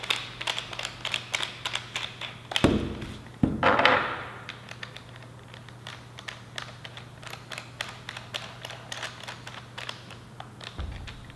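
Plastic massage-gun attachment heads being handled and fitted: a run of small clicks and taps, with two louder thunks about three seconds in.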